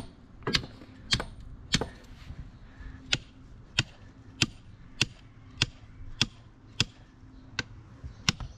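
Sledgehammer tapping steel rebar down into epoxy-filled holes in concrete: a steady series of sharp strikes, about one and a half a second.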